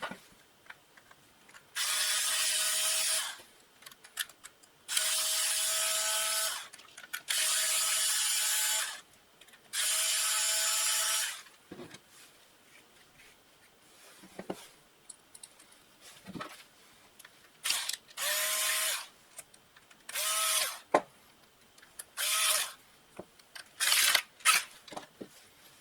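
Small power tool, a cordless drill/driver, running in short bursts. There are four runs of about a second and a half in the first half, then four shorter ones, with light clicks and handling noises between.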